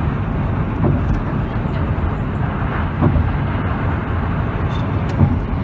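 Steady road noise from inside a car's cabin at highway speed: tyre and wind noise over a deep, even rumble.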